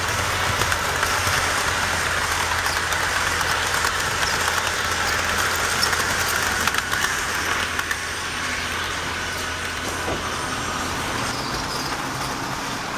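HO-scale model passenger train running close by: a steady motor hum and wheel noise on the track, a little quieter after about eight seconds.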